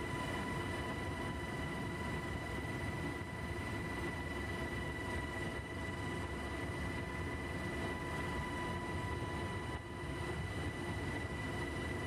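Helicopter in flight: a steady drone of engine and rotor with a high, steady whine running over it, dipping briefly near the end.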